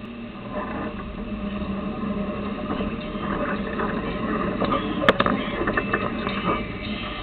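Jeep CJ engine running under load on a steep rocky climb, getting louder from about half a second in. Several short knocks sound through the middle, with one sharp, loud knock about five seconds in.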